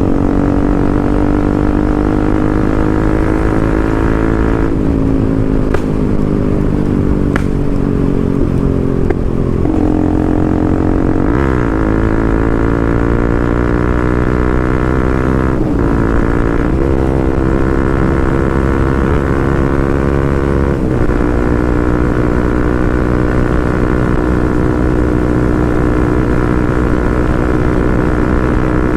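Bajaj Pulsar NS200 single-cylinder engine running without its dB killer, pulling on the road. The engine note climbs, then drops sharply at each gear change, several times.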